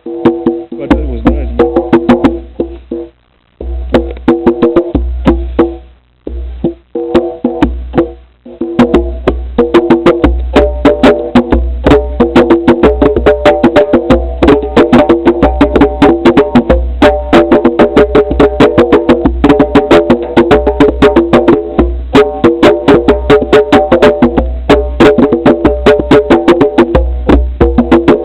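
Music with a fast, even clicking percussion beat over held tones and heavy bass. It breaks off briefly a few times in the first eight seconds, then plays on without a break.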